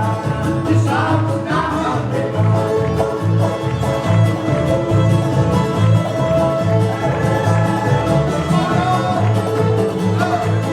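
Cajun and old-time string band playing live: fiddle lines held over a steady bass beat of about two beats a second.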